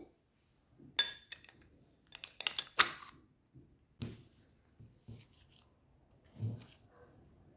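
Metal ice cream scoop clinking against a glass bowl as ice cream is scooped in: a sharp clink, then a quick run of clinks with the loudest one in the middle, followed by a few soft knocks.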